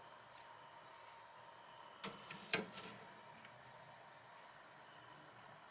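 A cricket chirping: five short, high chirps, unevenly spaced, with a brief knock about halfway through.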